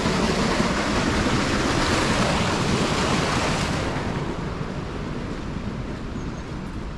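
Steady rushing of water flowing through a dam's concrete outflow canal, as an even noise that eases off somewhat about four seconds in.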